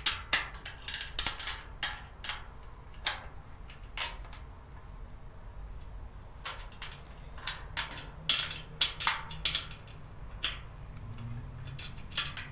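Storage cart parts clicking and clinking together as the cart is assembled by hand: a run of sharp clicks and knocks in the first few seconds, a short lull, then another cluster of clinks.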